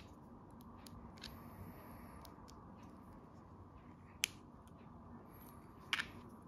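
Small plastic minifigure parts clicking as they are handled and pressed together by hand: a few sharp clicks, one near the middle and a close pair near the end, with faint ticks between.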